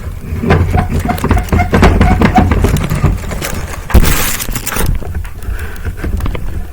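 Clattering and knocking of objects being handled, with a loud scraping rush about four seconds in.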